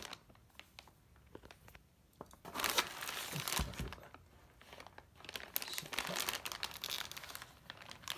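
Wrapping crinkling as it is pulled off a new shotgun, in two spells of irregular crackling: a short one about two and a half seconds in and a longer one in the second half.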